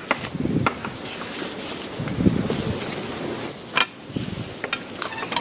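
Kitchen utensils at work: a spoon stirring and scraping in a mixing bowl, with a few sharp clinks, the clearest a little under four seconds in.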